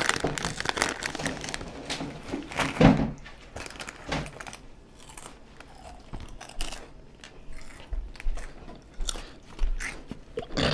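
Crunchy Flamin' Hot corn chips being bitten and chewed, with a thin snack bag crinkling as chips are pulled out at the start. Short, sharp crackles, dense at first and then more scattered.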